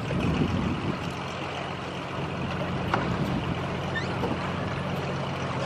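Boeing 737 airliner on final approach, its engines a steady low drone mixed with wind noise on the microphone, with a single click about three seconds in.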